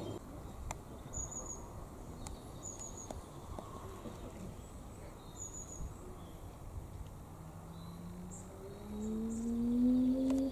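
Quiet outdoor ambience with short, high bird chirps every second or two. A low drone rises in pitch and grows louder near the end.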